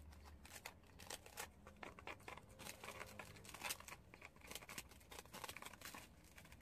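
Two prairie dogs gnawing puffed rice cakes (ppeongtwigi): faint, rapid crunchy bites and crackles in irregular clusters, one louder crunch about halfway through.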